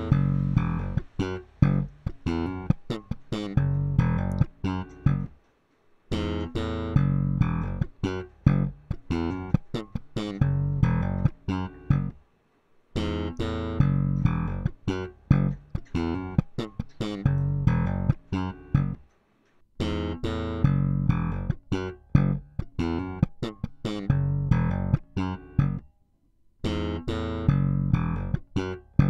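Slap bass guitar music: phrases of quick, sharply struck notes, broken by short silent pauses about every six to seven seconds.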